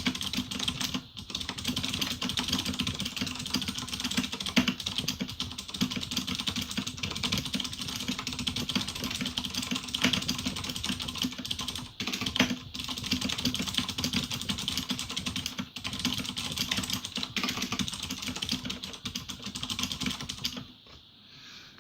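Fast touch-typing, about 600 characters a minute, on a Razer BlackWidow Ultimate 2013 mechanical keyboard with clicky Cherry MX Blue switches fitted with dampeners: a dense, even stream of key clicks with a few short pauses, stopping near the end.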